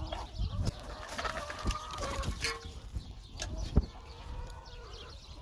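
Hens clucking and calling in short, gliding notes, with a few sharp knocks and clicks among them.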